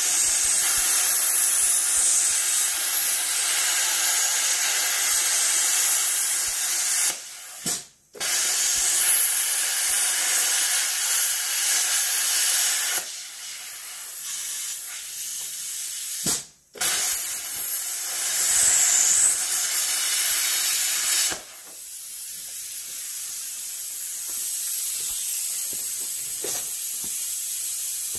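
Hypertherm Powermax1000 plasma cutter in gouge mode, scooping out the welds that hold a washer: a loud, steady hiss of arc and air jet. It stops briefly twice, about eight and sixteen seconds in, and its tone shifts a couple of times between passes.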